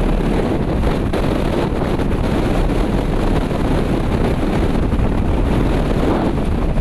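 Strong wind buffeting the microphone on the open deck of a container ship under way, a loud steady rushing with uneven flutter.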